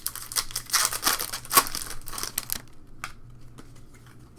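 Crinkling and tearing of a foil trading-card pack wrapper being ripped open, lasting about two and a half seconds, followed by a few light clicks of cards being handled.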